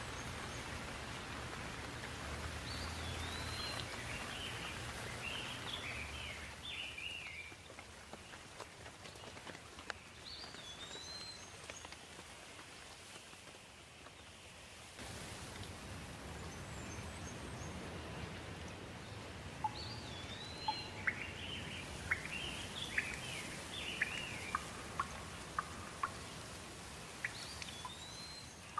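Steady rain with songbirds singing over it: a short phrase of up-and-down whistled notes comes back about four times, and sharp drip-like clicks sound through the second half.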